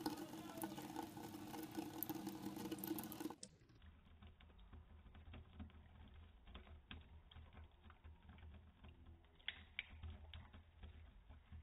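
A faucet runs in a thin stream. About three and a half seconds in, the sound turns slowed-down and muffled, as slow-motion playback does: a faint low hum with scattered soft clicks of a cat lapping water from the stream.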